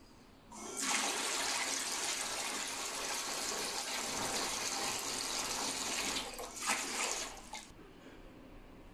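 Water gushing from the discharge hose of a running 12 V 750 GPH bilge pump and splashing into a plastic tub of water. It starts suddenly about half a second in, holds steady, falters briefly after about six seconds, surges once more and cuts off about a second before the end.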